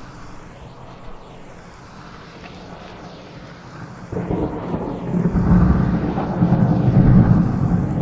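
Steady heavy rain, then a clap of thunder about four seconds in that builds into a loud, low rolling rumble, mixed with 8D panning.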